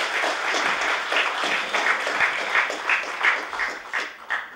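Audience applauding with a steady patter of many hands clapping, fading away and stopping near the end.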